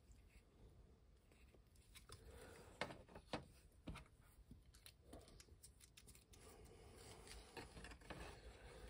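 Near silence with faint handling noise of small plastic parts: three light clicks a little past the middle, then soft rubbing and scraping near the end.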